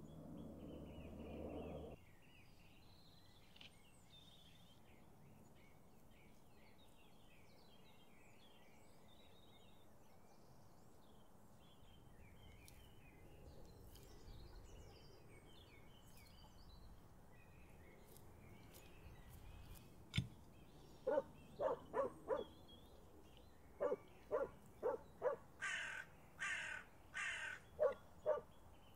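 Birds calling outdoors: faint small-bird chirping throughout, then from about twenty seconds in a run of short, loud repeated calls in quick groups. A brief noise at the very start cuts off about two seconds in.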